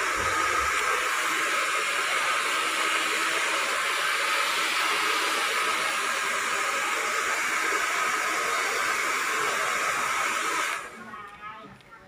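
Small electric appliance motor running steadily with a whooshing, airy hiss. It switches off suddenly near the end.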